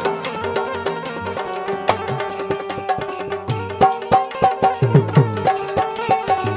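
Bundeli Rai folk music: hand drums beating a fast rhythm with small cymbals clashing about twice a second over a held note. About five seconds in, deep drum strokes that bend down in pitch come in and grow loud.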